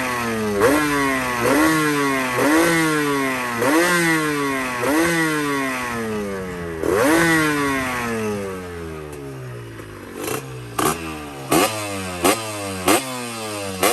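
Yamaha RX-Z 135 two-stroke single-cylinder engine breathing through a stainless-steel expansion-chamber exhaust, revved in quick throttle blips about once a second, each rising sharply and falling away. After about nine seconds it drops to a lower idle between short, sharp stabs of throttle.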